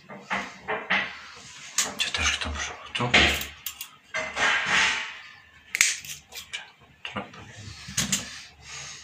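Pliers and a thin electrical cable being handled: a string of sharp clicks with short stretches of rasping scrape between them.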